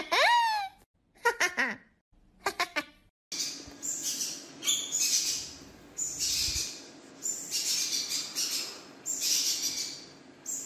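A young goat bleating three times, short cries that fall in pitch. About three seconds in, a pet parrot takes over with harsh, high squawks repeated every second or so, over a steady low hum.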